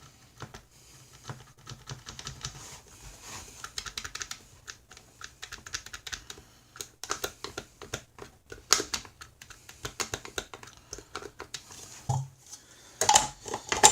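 Many light, irregular clicks and taps of small hard objects being handled, over a faint steady low hum.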